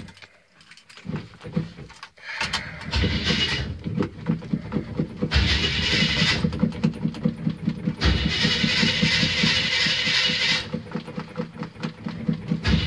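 1977 GMC pickup's engine being cranked over by the starter on a cold start after standing a couple of weeks. A rhythmic chugging begins about two seconds in, with several louder stretches, and the engine has not yet settled into running.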